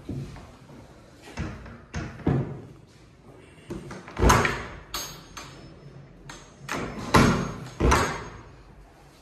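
Laminate sliding wardrobe doors in aluminium frames being pushed along their track, giving a series of knocks and thuds, loudest about four seconds in and twice near the end.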